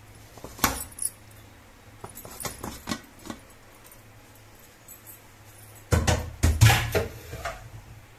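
Aluminium pressure cooker lid being unlocked and lifted off: sharp metal clicks and clinks, then a louder clatter of several knocks about six seconds in.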